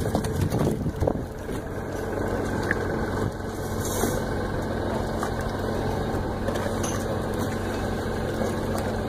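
Engine on a boat running steadily at idle, a constant droning hum, with a few knocks in the first second or so.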